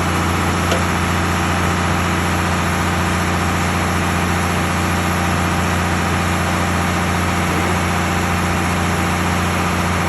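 Heavy diesel machinery running steadily at a constant speed: the drone of the concrete mixer truck and concrete pump working at a concrete pour.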